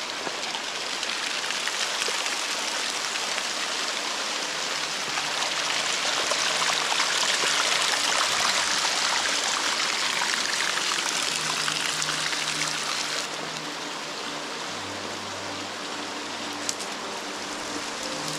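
Many small streams of water trickling and splattering down a mossy rock face, a steady hissing patter that drops a little in level about thirteen seconds in.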